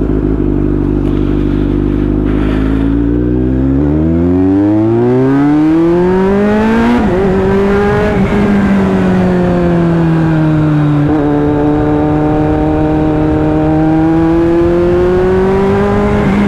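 Kawasaki Z900 motorcycle's inline-four engine running under way. Its pitch climbs steadily for a few seconds as it accelerates, drops back near the middle, eases a little lower, then holds a steady note.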